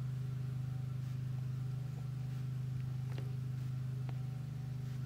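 A steady low hum, with a few faint light taps.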